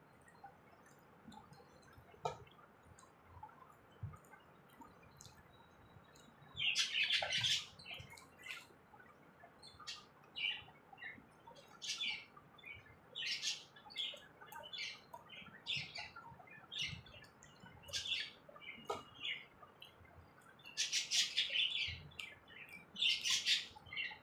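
Small birds chirping in short, repeated high-pitched bursts, starting about six seconds in and coming roughly once a second, with a few faint clicks before them.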